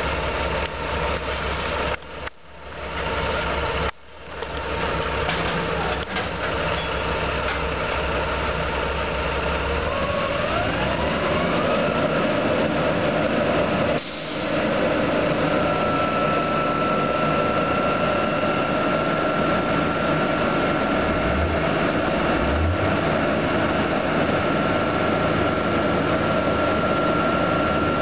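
Truck-mounted drilling rig's engine running, sped up about ten seconds in, then holding the higher speed with a steady whine on top.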